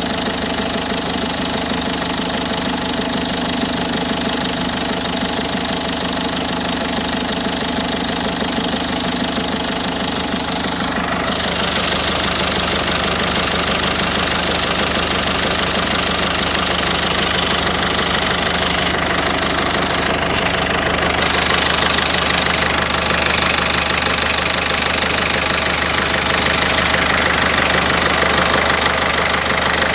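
A Peugeot/Citroën 1.6 HDi four-cylinder turbodiesel runs steadily with a knock in the engine. The sound grows brighter and harsher about a third of the way in.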